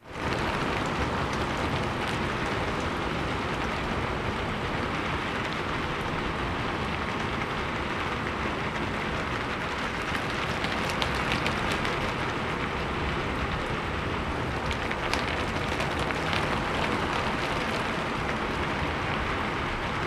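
Wind-driven rain pattering steadily on a roof and wooden surfaces, a dense even hiss with a few sharper drop hits now and then.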